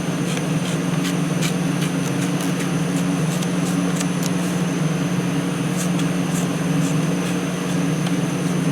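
Steady low mechanical hum, like an air conditioner or fan, with faint light clicks scattered through it.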